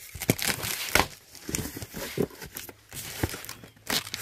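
Utility knife slitting the packing tape on a cardboard box: a run of irregular scrapes and taps on the cardboard.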